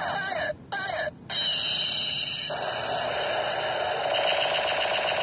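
Toy MP5 gun's electronic sound effect: a warbling electronic tone that cuts out twice briefly, about half a second and about a second in, then runs on steadily.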